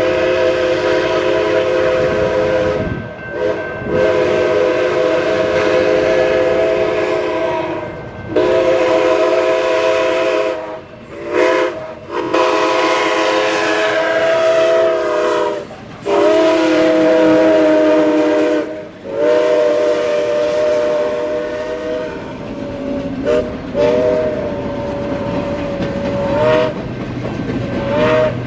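Canadian Pacific 2816's chime steam whistle blowing a long series of long, several-note blasts with short breaks, as the 4-6-4 Royal Hudson approaches and passes a grade crossing. Shorter toots follow later on. Near the end the train's wheels and the trailing diesel units rumble past.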